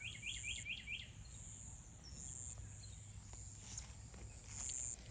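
Outdoor birdsong and insects: a bird gives a quick run of about six chirps in the first second. Short high buzzes recur several times over a steady low rumble.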